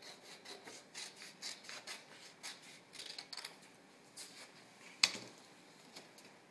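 Scissors snipping through construction paper in a run of short, crisp cuts over the first three seconds or so, then a single sharp tap about five seconds in.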